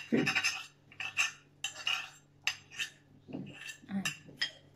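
Metal forks clinking and scraping against ceramic plates and a bowl as noodles are served, in a quick, irregular series of short clinks.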